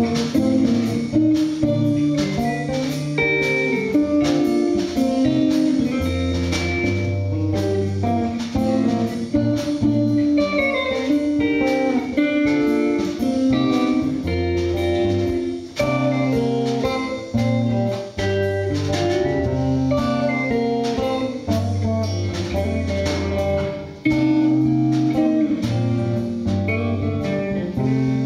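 Instrumental band playing live: electric guitar lines with acoustic guitar, congas and steady low bass notes, and a dense run of hand-percussion hits. No singing.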